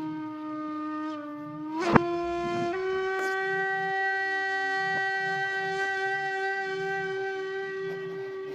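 A sustained horn-like tone with many overtones begins abruptly, sags slightly in pitch, then steps up a little under three seconds in and holds steady. A single sharp knock, the loudest moment, comes about two seconds in.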